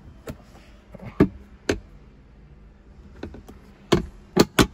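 Sharp clicks and knocks of hard plastic as a pickup's center console armrest lid and cupholder trim are handled, about seven in all, with a quick cluster of louder ones near the end.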